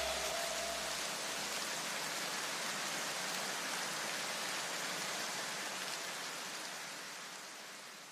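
Steady, even hiss of noise, like rain, that fades out near the end, with the last low notes of the electronic track dying away in the first two seconds.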